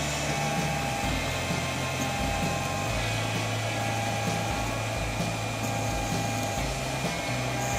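Sunhokey Prusa i3 3D printer printing. Its stepper motors give a low hum that jumps to a new pitch every second or so as the moves change, over the steady whir of the hot-end cooling fan.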